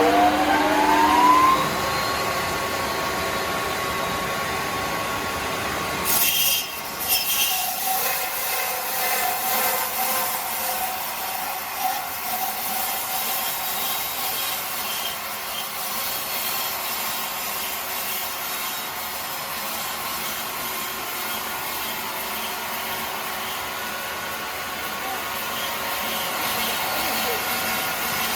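A power saw's motor winds up to a steady high speed in the first two seconds, then saws through timber. There is a short noisy burst about six seconds in, then a steady cutting sound.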